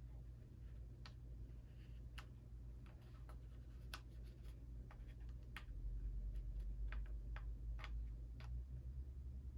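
Scattered small clicks and ticks from a plastic device housing being handled and worked on, over a steady low hum that gets louder about six seconds in.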